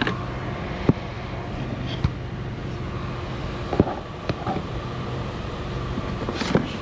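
Hard plastic engine-bay cover panel being handled and lined up onto its mounting holes, giving a few short sharp plastic clicks and knocks over a steady background hum.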